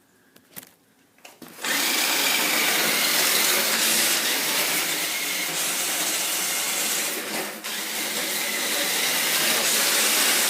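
Fastlane Power Strike toy RC car's electric motor and drivetrain running loud while it drives over rocky ground, starting about a second and a half in, with a brief letup about seven and a half seconds in.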